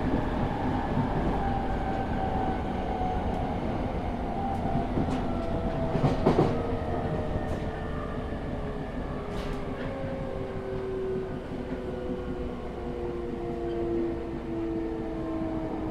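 JR East E217 series motor car's Mitsubishi GTO VVVF inverter and MT73 traction motors whining, several tones falling slowly in pitch as the train slows, over a steady running rumble. Wheels click over rail joints now and then, the loudest knock about six seconds in.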